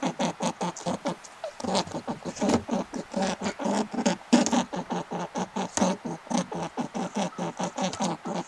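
A small animal making rapid short squeaking calls, several a second, in an unbroken run.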